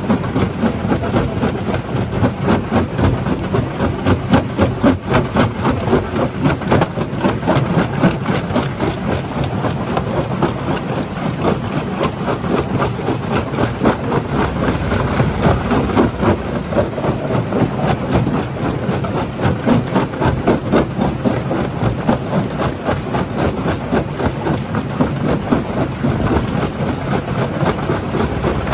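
Rock crusher running: a steady heavy machinery drone with continuous rattling and knocking of rock being broken.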